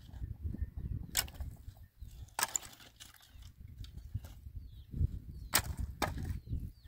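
Dry branches being snapped and handled for firewood: four sharp cracks of breaking wood over the low rustle and knock of sticks being dragged and tossed onto a pile.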